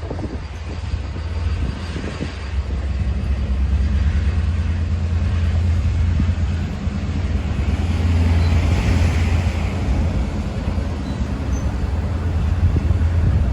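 Long Island Rail Road engine 408, a DE30AC diesel-electric locomotive, running with a steady, loud low rumble. It grows a little louder about three seconds in.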